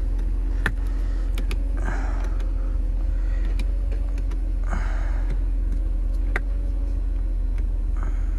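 A Mercedes-Benz W124 300E's straight-six engine idling steadily, with a few sharp clicks over it.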